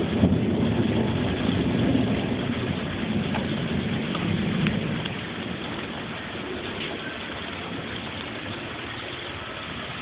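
Thunder rumbling and fading away over the first five seconds or so, over steady rain, recorded on a phone's microphone.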